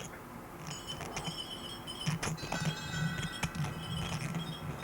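Several high, clear chime tones ringing and overlapping at different pitches, with a few light clicks, over a steady low hum.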